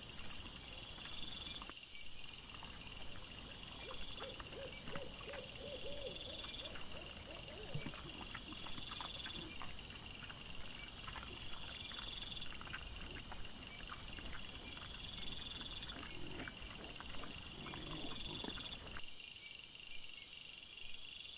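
Night insects, crickets, chirping in a steady pulsing chorus. About four seconds in comes a short run of about six quick low calls, with scattered faint rustles and clicks throughout.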